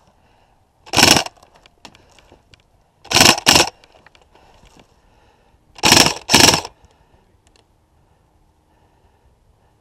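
Airsoft electric gun firing short bursts, each a fast mechanical buzz: one burst about a second in, two in quick succession around three seconds, and two more around six seconds.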